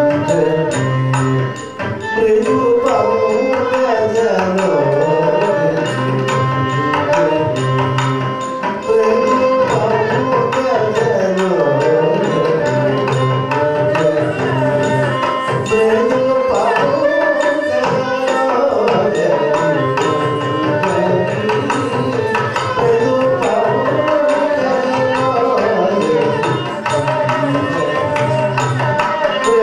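Live Carnatic classical music for Bharatanatyam dance: a violin melody over steady hand-drum strokes, in a ragamalika set to adi tala.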